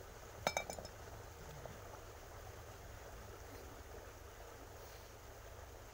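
A sharp metal-on-metal clink with a brief ringing and a few quick rebounds, about half a second in, as a tool or part knocks against the diesel engine being worked on; a faint low steady rumble underneath.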